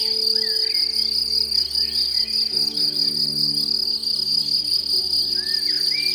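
Crickets trilling in a steady, continuous high-pitched chorus, with a few short chirps over it.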